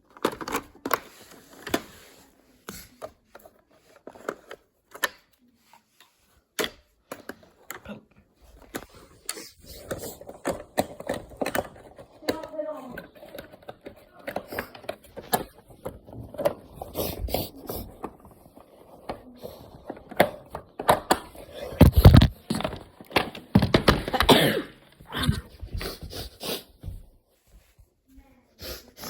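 Plastic clicks, knocks and scrapes of robot vacuum dustbins being handled, unlatched and opened, with rustling as the collected confetti and debris are checked, loudest bursts a little past the middle.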